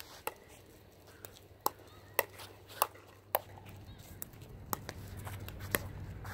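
Pickleball dink rally: sharp pops of paddles hitting the hollow plastic ball and the ball bouncing on the court, about one to two a second at an uneven pace.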